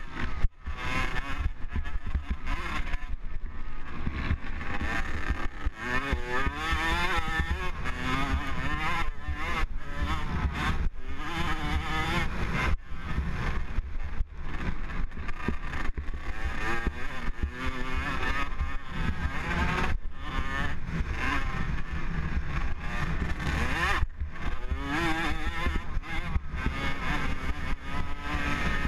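Dirt bike engine racing around a motocross track, revving up and down as the throttle opens and closes, its pitch climbing and falling again and again with brief sudden drops. Wind rumble on the helmet-mounted microphone sits under it.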